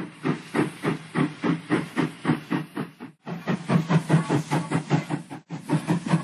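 Steam locomotive chuffing at an even pace, about three hissing puffs a second, with two brief breaks in the rhythm.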